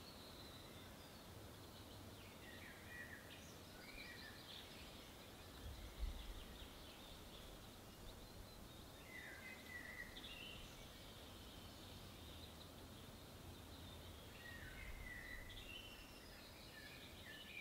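Quiet outdoor ambience with scattered short bird chirps and calls, over a low rumble. One brief low thump about six seconds in.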